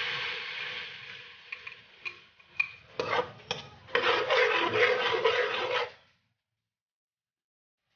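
Sizzling in an aluminium wok as strained annatto liquid hits sautéed garlic and onion, dying down over the first second or two. Then a few light taps, and from about four seconds in a spatula scraping and stirring in the wok, which cuts off about two seconds later.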